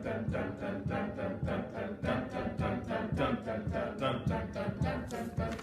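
A choir chanting a steady run of eighth notes on 'dun', about five or six a second, as a vocal metronome pulse.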